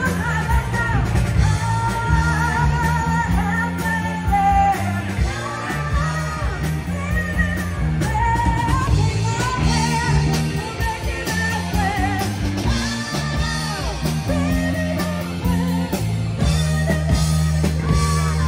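Rock band playing with a woman singing lead over electric guitar, bass and drums.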